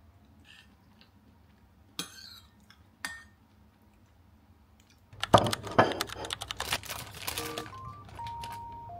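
A metal spoon clinks twice against a ceramic bowl, about two and three seconds in. From about five seconds in, a plastic snack bag crinkles loudly as it is handled, and a simple melody of short single notes comes in near the end.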